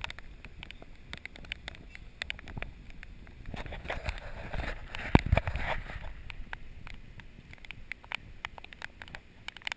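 Mountain bikes riding on a wet concrete road, picked up on a moving action camera: wind rumbling on the microphone, tyre noise, and frequent small clicks and rattles. A louder rushing swell builds from about three and a half to six seconds in, with a thump in the middle of it, the loudest moment.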